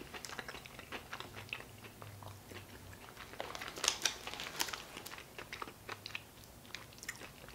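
A person chewing a mouthful of handheld chicken pot pie with a crispy pastry crust: faint wet mouth sounds and small crunches, busier about four seconds in.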